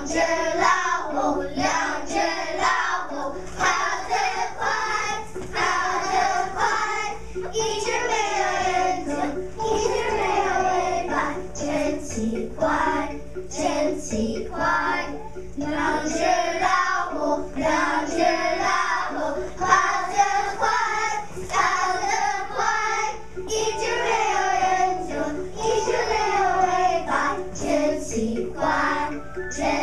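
A class of first-grade children singing a song together in unison.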